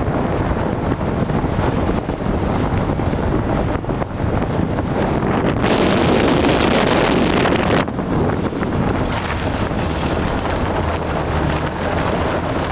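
Wind rushing over the microphone on a moving sledge, with the hiss of sledge runners sliding over snow. The noise swells for about two seconds near the middle, then drops back.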